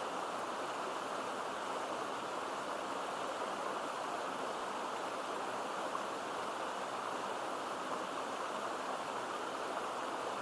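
Mountain stream babbling into a pool, a steady, even rush of running water with no breaks.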